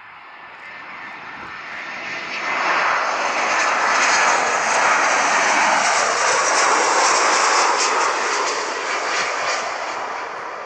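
Fixed-wing aircraft engines passing close by: a loud roar that swells over the first few seconds, holds, and fades toward the end.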